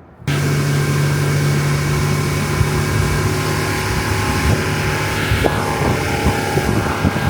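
Boat motor running steadily under way, with a hiss of wind and water over it; it cuts in abruptly just after the start, and its pitch shifts slightly about five and a half seconds in.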